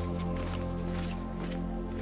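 Ambient background music of held, layered tones over a steady low drone.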